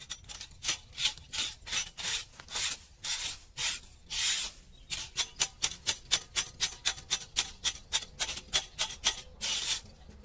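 Hand scraping tool scratching dirt and debris off a metal drain grate and the concrete gutter around it, in repeated short strokes, about two a second at first, then quicker, three or four a second, from about halfway through, with one longer scrape just before it stops near the end.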